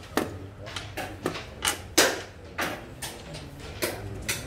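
Irregular sharp clicks and knocks of xiangqi pieces being handled and set down on a wooden board, and a chess clock's button being pressed, the loudest knock about two seconds in.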